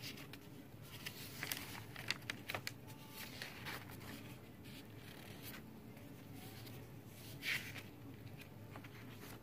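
Paper pages of a handmade junk journal being turned and handled: soft rustling with light taps and crinkles, and a louder swish of a page turning about seven and a half seconds in.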